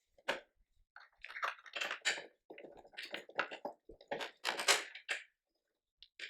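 Metal snowblower bracket and hardware being handled and fitted into place: an uneven run of clinks, taps and scrapes for several seconds.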